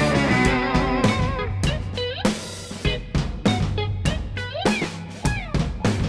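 Background music: electric guitar lines with bends and vibrato over bass and a steady rock drum beat.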